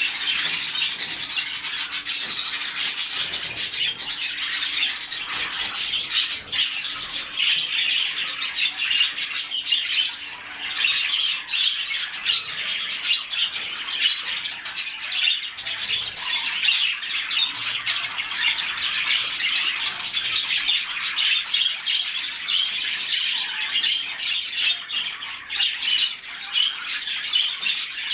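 A flock of budgerigars chattering together: many chirps and warbles overlapping without a break.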